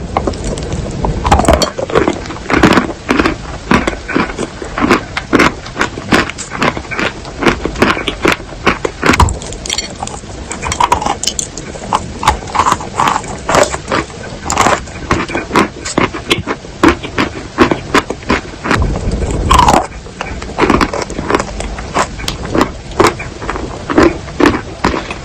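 Wet chalk being crushed: a dense, irregular run of crunches and crackles, several a second, with a few short squeaky smears between them.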